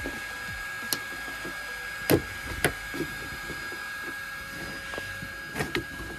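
Sharp plastic clicks and knocks from a car's bumper cover and its plastic trim clips being prised and pulled loose with a screwdriver. There are about six clicks, the loudest about two seconds in, over a faint steady high whine.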